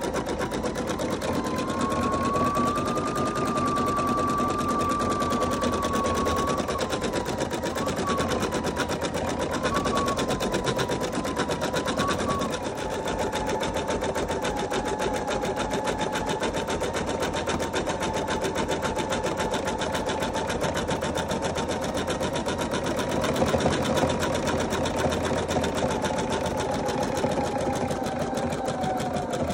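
Computerized embroidery machine stitching a design, the needle running in fast, even strokes over a steady motor whine that shifts a little in pitch now and then.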